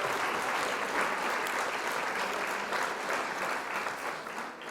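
Applause from many people clapping, fading out near the end.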